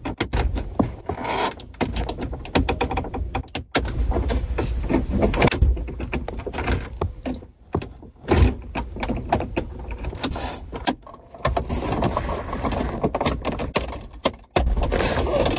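Hard plastic dashboard trim panel around the radio of a 2014 Chevrolet Silverado being pried and tugged loose by hand: many rapid clicks, knocks and creaks of plastic trim and its metal retaining clips, with a few short pauses.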